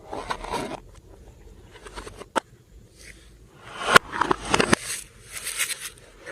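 Hands squishing and stretching glossy slime: irregular wet, sticky crackles and clicks in several bursts, with a sharp click a little past two seconds and the loudest cluster about four seconds in.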